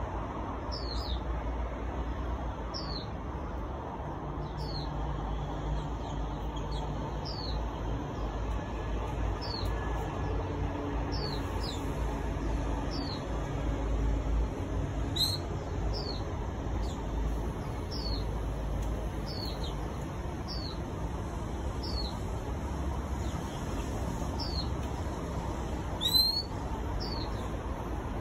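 Caged Oriental magpie-robin repeating a short, high whistled note about once a second, each note sliding down in pitch, with a few louder notes. A steady low background rumble runs underneath.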